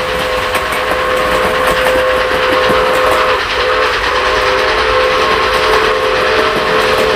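A train horn sounding one long, steady chord of several tones, with a brief break about three and a half seconds in, over the noise of the train running.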